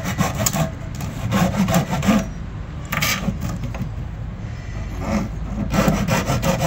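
A saw blade worked by hand through the wall of a plastic jerry can, in quick rasping strokes. It eases off in the middle, then the strokes pick up again.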